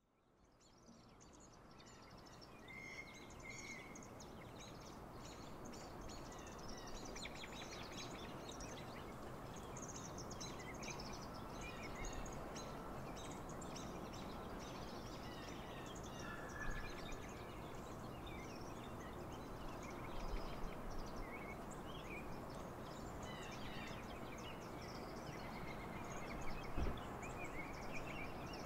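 Many small birds chirping over a steady background hiss, fading in over the first couple of seconds, with a low bump near the end.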